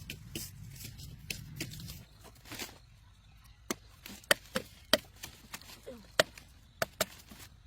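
A blade chopping: sharp strikes at an uneven pace, mostly in the second half.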